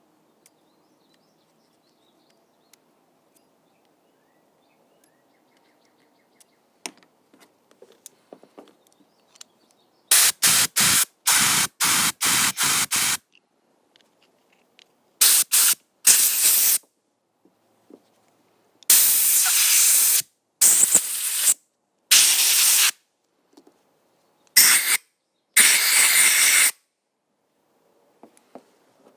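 Compressed-air blow gun firing in hissing blasts, first a quick run of about six short ones, then several longer blasts of a second or two each, blowing out hydraulic valve parts. Before the blasts there are only a few faint clicks of parts being handled.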